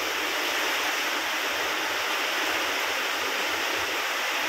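Heavy rain pouring steadily onto a concrete rooftop, an even, unbroken hiss.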